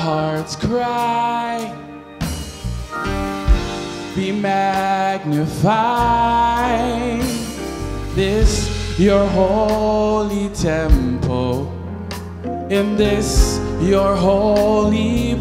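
A man singing a gospel worship song into a handheld microphone, his voice gliding into long held notes, over an instrumental backing with a steady low bass and occasional sharp percussive hits.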